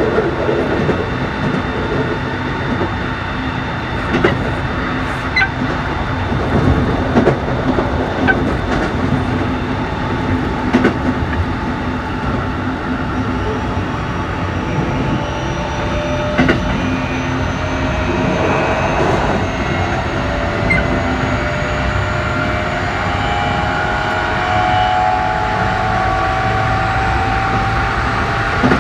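Keikyu New 1000 series electric train car with a Toshiba IGBT-VVVF inverter, running along with scattered clicks of the wheels over rail joints. From about halfway on, the inverter and traction motors give a whine that slowly rises in pitch as the train accelerates.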